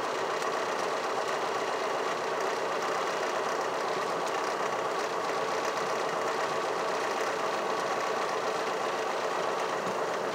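Light single-engine airplane's engine running steadily at low taxi power, heard inside the cockpit as an even drone with a few steady tones.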